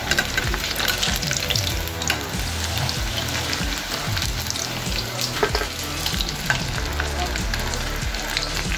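Hot oil sizzling and crackling steadily as batter-coated paneer cubes deep-fry in a kadhai on a high flame, at the second fry of a double fry for crispness. Many short sharp crackles sound through the sizzle.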